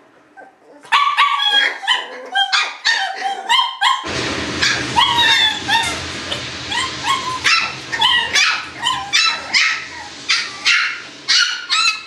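Shiba Inu puppies yipping and whining in a rapid run of short, high-pitched calls, about two a second, starting about a second in, with a steady rushing noise underneath from about four seconds in.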